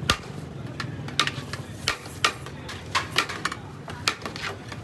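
Metal serving spoon clinking and scraping against a large metal biryani pot as rice is scooped out: a string of irregular sharp clinks, roughly a dozen.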